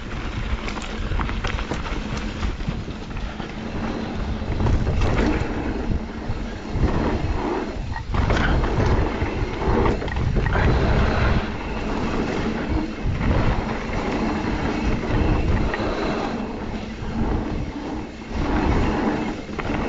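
Mountain bike ridden down a dirt trail: wind buffeting the microphone in an uneven, gusting rush, with tyres on dirt and scattered sharp clicks and rattles from the bike over bumps.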